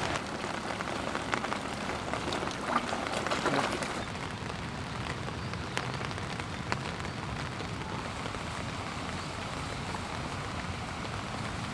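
Light rain falling steadily, with a few louder rustles in the first few seconds and occasional faint taps.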